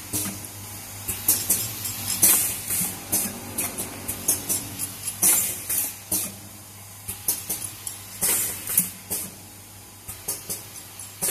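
Four-side-seal liquid sachet packing machine running: irregular clicks and clacks from its mechanism, with short sharp hisses of compressed air from its pneumatic cylinders, over a steady low hum.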